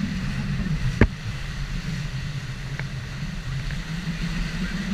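Steady rush of water and wind as an inflatable banana boat is towed at speed over the sea, with a single sharp knock about a second in.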